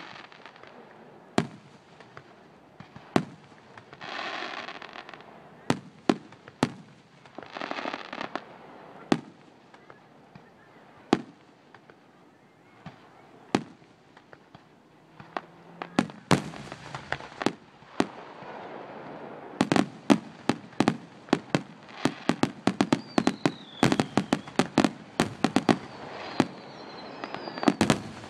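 Aerial firework shells bursting in a finale. Single sharp bangs come every second or two at first, then from about halfway in they come in a rapid barrage of many bangs a second.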